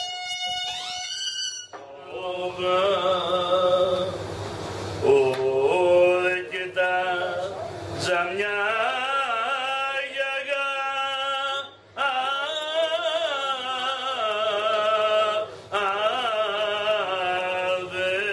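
A brief snatch of instrumental music cuts off, and a man starts singing a slow folk song unaccompanied. He draws out wavering, ornamented notes and breaks twice for breath.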